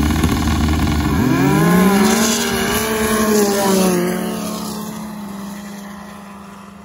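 Racing snowmobile at full throttle down a snow drag strip: its engine note climbs in pitch about a second in and holds high as it passes close, then dies away as the sled speeds off down the track.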